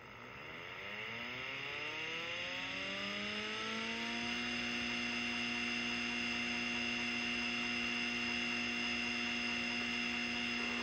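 Seagate ST-212 hard drive's spindle motor spinning up its platter with the cover off: a whine that rises in pitch and grows louder, levelling off about four seconds in to a steady hum and whine at full speed.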